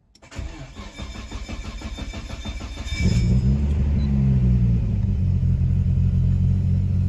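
Nissan RB26DETT straight-six, converted to a single turbo, cranking on the starter in a rhythmic pulse for nearly three seconds, then catching, flaring up to about 1,500 rpm and settling back toward an idle near 900 rpm. It is running on a freshly fitted and calibrated Haltech 4-bar MAP sensor.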